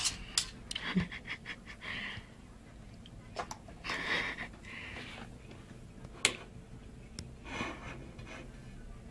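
Knife and fork clicking and scraping on a plate as pieces of meat are cut, with a dog's breathing close by in short spells.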